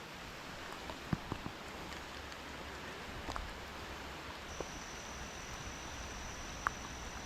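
Steady rain falling, with scattered single drops ticking close by. A faint thin high tone comes in about halfway through and holds steady.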